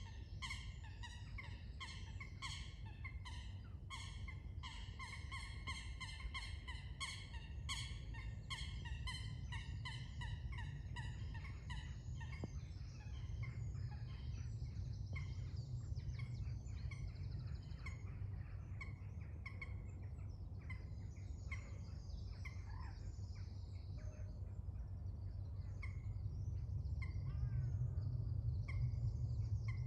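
White storks bill-clattering: a fast run of sharp clacks for about the first twelve seconds, which then stops. Afterwards there are scattered small-bird chirps over a steady low rumble.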